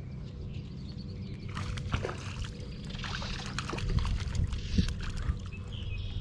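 Water splashing and sloshing beside a small boat, with scattered light knocks and clicks from about a second and a half in, as a hooked bluegill is brought in.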